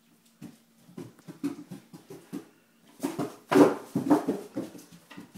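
Great Dane making a string of short, irregular vocal sounds, loudest about three and a half seconds in.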